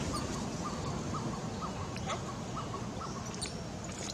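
An animal calling in short, faint chirps, about three a second, over steady outdoor background noise, with a few sharp clicks.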